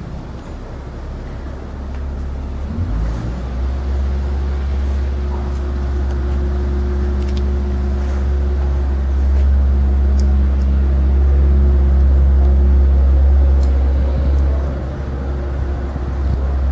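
A steady low engine rumble, growing louder about three seconds in, with a faint steady hum on top and a few light clicks.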